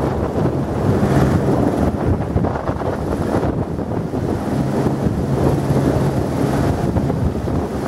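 Police rescue helicopter running close by, a steady rotor and engine hum under heavy wind buffeting on the microphone from the rotor wash.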